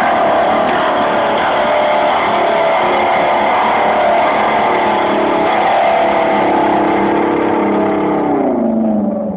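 A long string instrument droning, with several sustained tones sounding together. Near the end the pitches slide downward and the sound gets quieter.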